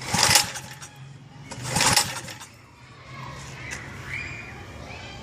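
Tiller's small engine running roughly in two loud bursts, then cutting out about two and a half seconds in, which the owner puts down to it not getting gas. Birds chirp afterwards.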